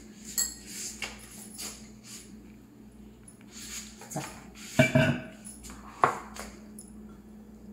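A metal spoon clinking and scraping in a ceramic bowl as a coarse masala stuffing is stirred, a few scattered sharp clinks, with a louder knock about five seconds in.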